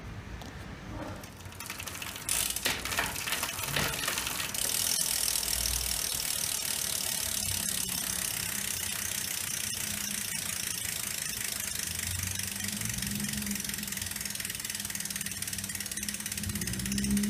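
DMR Comp rear hub's freehub pawls clicking against the ratchet as the wheel freewheels: a fast, even buzz of ticks that gets louder about two seconds in and then holds steady.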